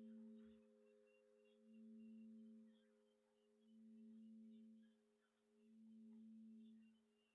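Near silence with a faint, low, sustained ringing tone that swells and fades about every two seconds, like a singing bowl or bell dying away.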